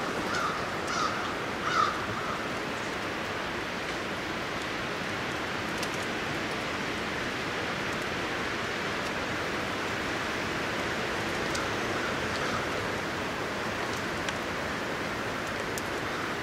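Steady wind rushing through the woods, with a bird calling four times in quick succession at the start and a couple more fainter calls about two-thirds of the way through.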